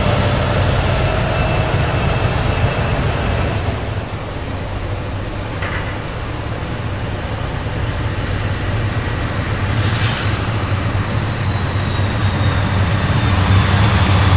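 Freight train: rail cars rolling past, then a set of diesel locomotives approaching, their engines a steady low drone that grows louder toward the end. A thin high whine, slowly falling, runs through the last few seconds.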